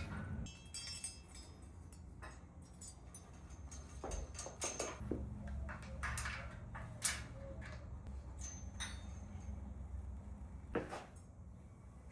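Metal gym hardware clinking and tapping: a scattered series of light metallic clicks and knocks, some with a brief high ring, over a steady low hum.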